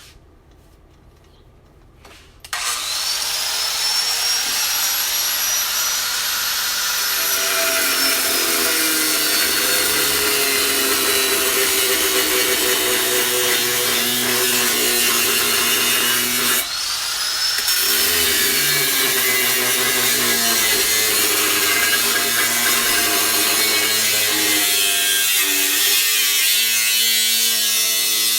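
Power tool cutting through a 16-gauge steel tab on a shifter riser: its motor whines up about two and a half seconds in, the pitch drops as it bites into the metal, and it runs on with a harsh cutting noise. It stops briefly around seventeen seconds in, then spins up and cuts again.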